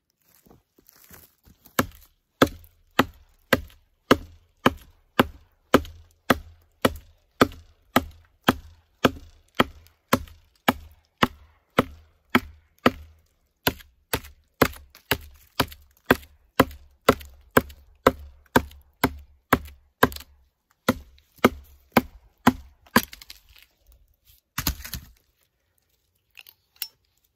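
Worktuff / Aurora Borealis Wolverine knife chopping into dead wood: a steady run of sharp chops, about one and a half a second, that stops a few seconds before the end, followed by a couple of scattered knocks.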